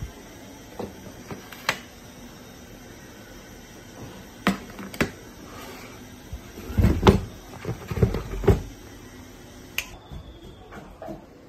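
Kitchen handling sounds of peeled yam in a basin: scattered sharp knocks and clicks, with a cluster of heavier thuds about seven to eight and a half seconds in that is the loudest part.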